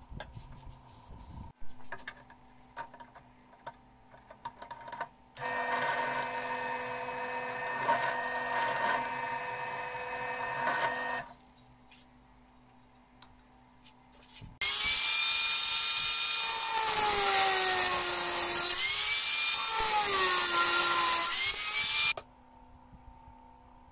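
A bench drill press runs steadily for about six seconds, drilling a wooden knife-handle scale. After a pause, a louder handheld corded power drill runs for about seven and a half seconds, its pitch dropping and rising again several times, then cuts off suddenly. Light handling clicks come before the drill press starts.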